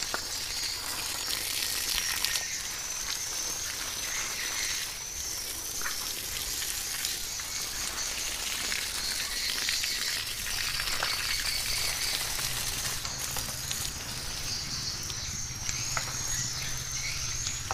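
Steady chorus of insects singing outdoors, a high, shrill, wavering drone that runs without pause.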